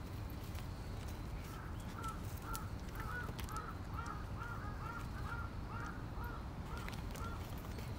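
A crow cawing in a quick series of about a dozen calls, roughly two a second, starting about two seconds in and stopping near the end.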